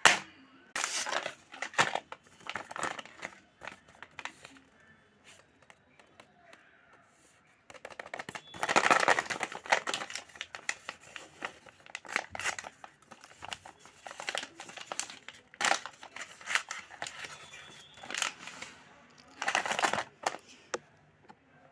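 Packaging crinkling and rustling as it is handled and opened, in irregular bursts with a quieter spell about four to seven seconds in.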